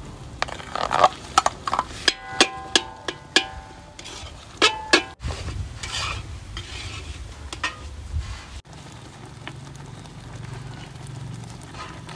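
Metal ladle clanking against a large metal wok while stirring a liquid mixture: a string of sharp clanks with a short metallic ring in the first five seconds, then fewer, quieter sounds.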